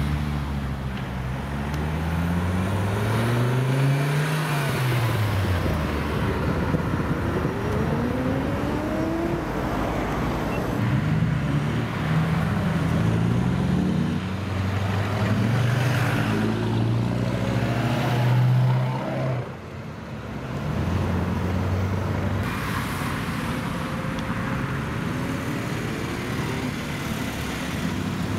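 Several cars and trucks pulling away and passing one after another, their engines revving and rising in pitch as they accelerate, with a brief lull about twenty seconds in.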